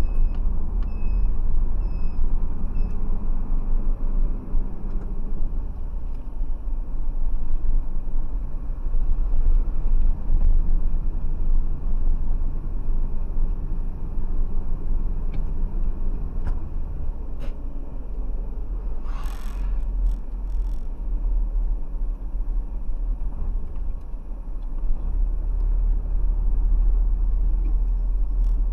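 Steady deep rumble of a vehicle driving along a snowy road, its engine and tyre noise heard from a dashcam inside the cab. A short sharp rattle cuts in about two-thirds of the way through.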